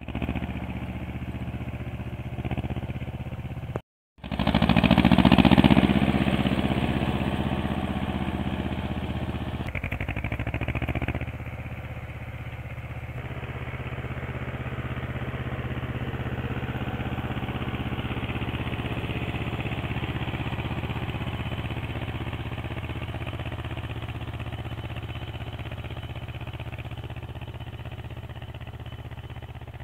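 Ursus tractor's diesel engine running steadily under load while pulling a seed drill. It is loudest about five seconds in, then grows quieter as the tractor moves off, with a sudden drop about eleven seconds in.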